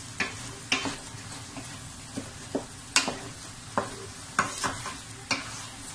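Wooden spoon stirring minced chicken and diced carrots frying in oil in a stainless steel pot. A steady low sizzle runs under irregular scrapes and knocks of the spoon against the pot, the sharpest about three seconds in.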